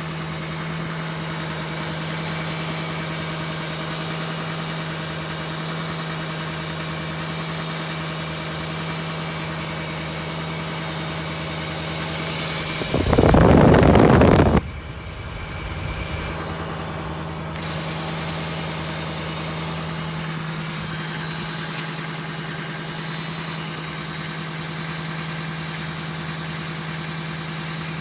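LLY Duramax V8 turbo-diesel running steadily at elevated idle, with a faint high turbo whine over the engine note. About halfway through, a loud rush of noise lasts about a second and a half.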